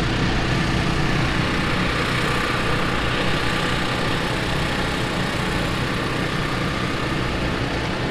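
Schaffer mini articulated loader's engine running steadily while the hydraulic lift arm lowers a log held in its grapple.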